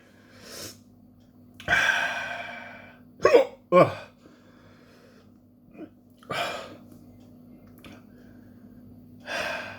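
A man hiccupping twice in quick succession between heavy breaths, after a long, breathy exhale. The hiccups are brought on by the burn of a super-hot Armageddon chili pepper he has just eaten.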